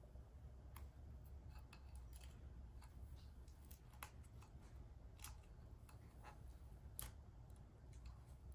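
Near silence with a few faint clicks and ticks of a fingernail picking at and peeling a vinyl decal off a glitter-coated tumbler, over a low steady room hum.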